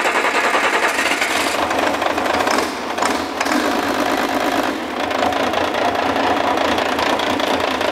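International DT466 inline-six diesel engine running steadily just after starting, still cold, with its fuel system freshly bled. The sound dips briefly twice, near three and five seconds in.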